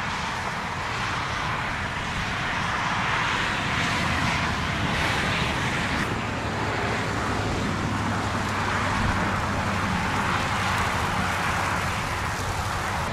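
Steady outdoor rushing noise that swells and fades slowly, with a low hum underneath.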